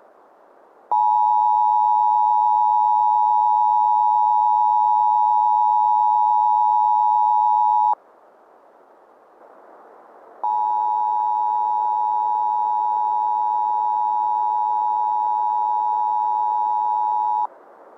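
Emergency Alert System two-tone attention signal: a steady, piercing dual tone that sounds for about seven seconds, stops, then sounds again for about seven seconds, slightly quieter. A steady hiss like radio static lies under it.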